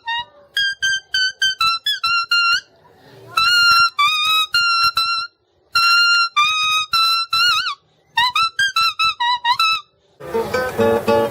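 A high-pitched wind instrument playing a fast melody of short, separate notes alone, with a few brief pauses. Near the end it cuts to strummed acoustic guitar.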